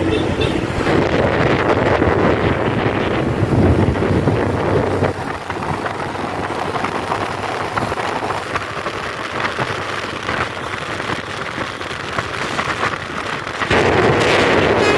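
Road vehicle noise with wind rushing on the microphone: a steady noisy rush of engines and tyres, louder for the first five seconds, dropping back, then louder again near the end.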